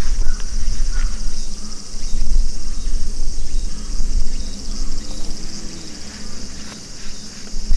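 Insects buzzing in a steady, high, even drone, over a low, uneven rumble that is the loudest thing heard.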